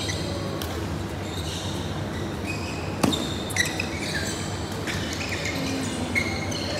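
Badminton play on an indoor court: rackets smacking the shuttlecock, the sharpest hit about three seconds in, and sneakers squeaking on the court floor in short bursts, over a steady hum of the hall.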